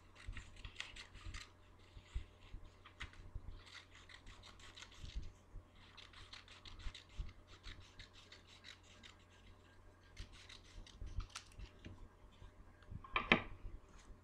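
Scissors cutting thin paper into strips in several runs of quick snips, with a louder brush of paper against the table near the end.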